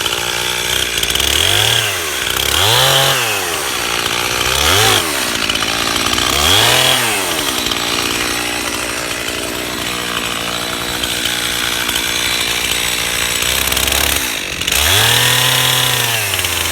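Stihl two-stroke chainsaw engine revving up and dropping back about five times, with a longer stretch of steady running in the middle, while notching a standing dead oak for felling.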